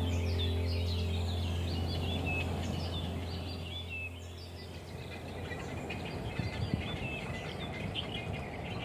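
Many small birds chirping in quick, short notes across the tree colony. Under them a steady low hum fades away by about halfway through.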